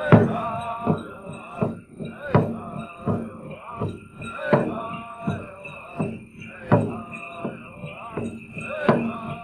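Big drum struck in a steady beat, about one stroke every three-quarters of a second, with the seated drummers singing a bean dance song in chorus.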